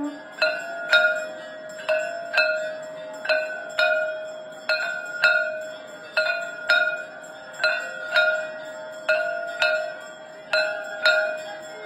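Brass hand bell (ghanti) rung during aarti, struck in pairs about every second and a half, each stroke ringing out and fading before the next pair.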